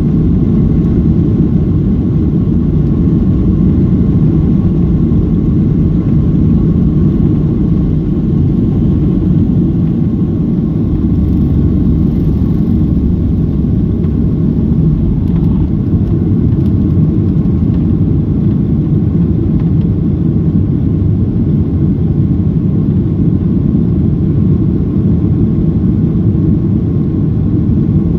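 Steady low drone of a Boeing 737's jet engines and airflow, heard inside the cabin in flight, with a faint steady whine above it.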